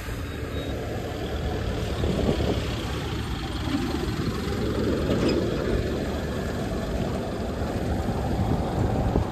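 Engine of a mechanised fishing boat running steadily, a low hum with a noisy wash over it.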